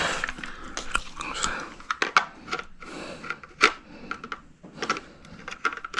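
Scattered sharp clicks and light knocks of hard parts being handled, with soft rustling between them.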